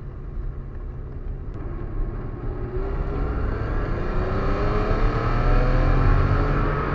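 BMW E34 car accelerating: its engine note rises steadily from about three seconds in, over a steady low rumble of road noise.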